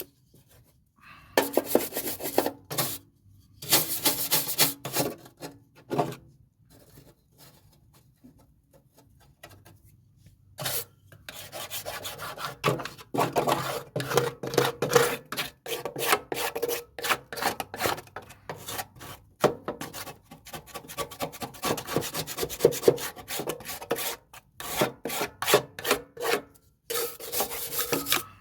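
Deck cleaning brush scrubbing caked grass off the underside of a lawnmower cutting deck: runs of quick back-and-forth strokes, about three or four a second, with a pause of a few seconds about a third of the way in.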